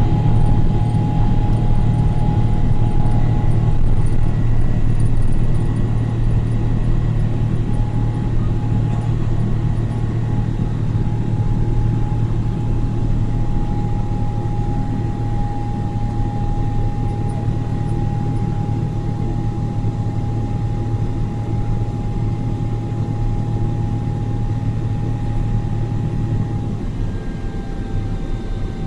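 Inside the cabin of a Boeing 777-300ER climbing out after takeoff: its GE90-115B engines at high thrust make a steady low roar with a thin, steady whine above it. The whine dips slightly in pitch near the end.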